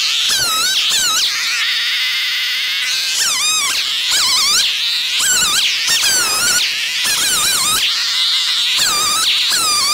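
A REZER FGS-5200MG 52 cc two-stroke petrol chainsaw runs at high revs while cutting through logs. Its pitch repeatedly dips and climbs back up as the chain bites into the wood and frees again.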